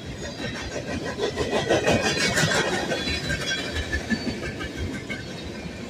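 Freight train rolling past, its boxcars and hopper cars clacking and rumbling on steel wheels over the rails, loudest about two seconds in.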